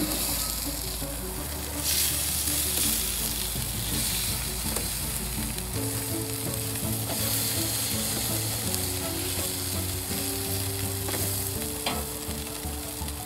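Burger patties sizzling steadily on a grill mat over a hot gas grill as they are flipped with a slotted metal spatula, with a few brief scrapes of the spatula.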